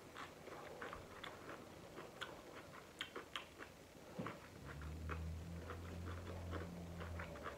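Close-up chewing of stir-fried cabbage: many short clicks and smacks, several a second. A low steady hum joins in for about the last three seconds.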